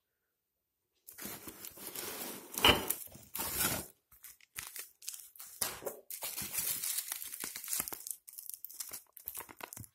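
Plastic packaging and a paper receipt rustling and crinkling as they are handled and pulled out of a cardboard box. The crinkling starts about a second in, comes in irregular bursts and is loudest near the three-second mark.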